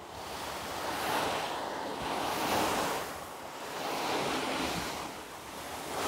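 Philips PowerPro Ultimate bagless cylinder vacuum cleaner sucking up sand: a rushing hiss that swells and fades with each push of the floor nozzle, about every second and a half.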